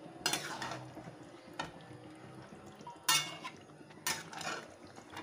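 Metal spatula scraping and clanking against a kadai while stirring raw marinated chicken pieces into masala, with a stroke every second or so.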